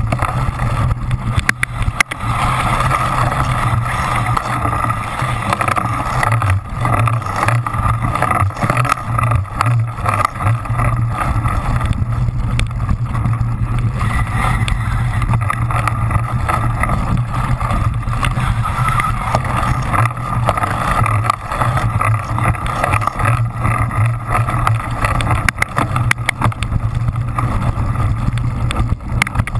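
Onboard sound of a cyclocross bike racing through sand: a steady rumble of knobby tyres churning sand, with frequent rattles and knocks from the bike's frame and drivetrain over the rough ground.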